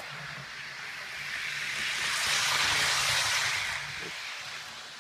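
ICE 3 model train running fast along the track, the rush of its motor and wheels swelling as it passes close by and then fading, over a faint steady hum.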